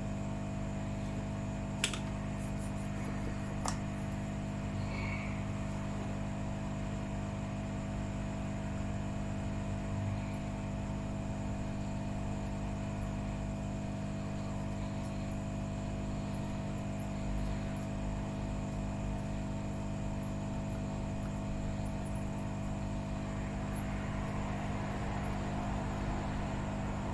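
Steady electrical hum of workbench equipment: a low drone with several steady tones. Two small clicks come about two and four seconds in.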